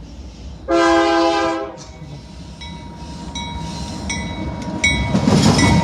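Locomotive five-chime air horn (Nathan K5-series) sounding one short chord blast of about a second. After it comes a high ringing that repeats steadily, and the rumble of the approaching train grows louder near the end.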